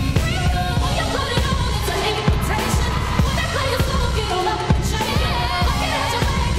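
Pop song playing: a sung vocal melody over a drum and bass beat.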